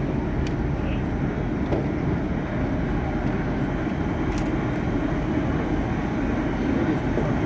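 CRRC Zhuzhou electric hybrid locomotive running, a steady low rumble with a couple of faint clicks.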